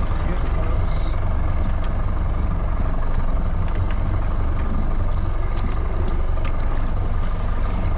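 Scotty 2500 electric line puller running steadily as it hauls a crab hoop net's rope up from the water, over a steady low rumble, with a few faint clicks.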